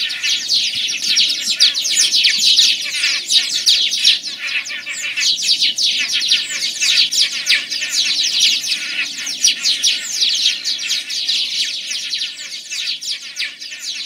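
A dense chorus of many small birds chirping rapidly and continuously, all high-pitched quick notes, easing off a little near the end.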